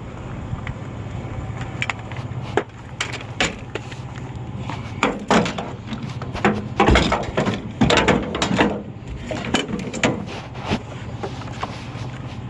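Pickup truck driving, heard from inside the cab: a steady low engine and road drone with repeated clunks and rattles, thickest about halfway through.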